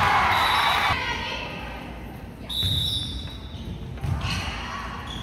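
Indoor volleyball play in a large gymnasium: the ball's thuds and voices from the players and spectators echo around the hall, loudest in the first second, with a short high tone about halfway through.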